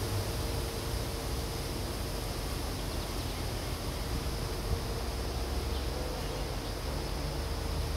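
Distant diesel locomotive running with a steady low rumble and faint hum as it approaches slowly.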